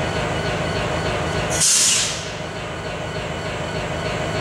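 Norfolk Southern diesel locomotives, an EMD SD70ACe and a GE ES44AC, with their engines running steadily. About a second and a half in comes a brief loud hiss that dies away within half a second.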